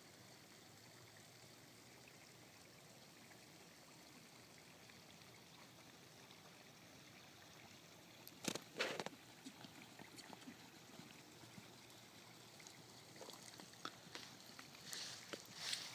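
Faint steady hiss of open-air background, broken about halfway through by two sharp knocks close together. Near the end come soft, irregular thuds of a horse's hooves on arena dirt as it passes close by.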